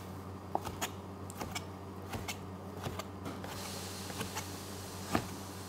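Chef's knife slicing streaky bacon on a plastic cutting board: light, irregular taps of the blade against the board, a dozen or so, over a steady low hum.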